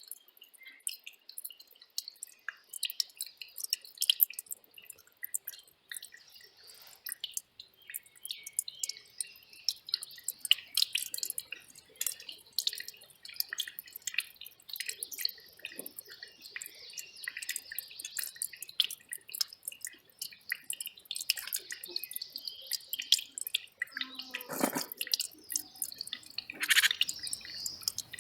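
Small mountain stream trickling over rocks, a dense, irregular patter of little splashes and drips.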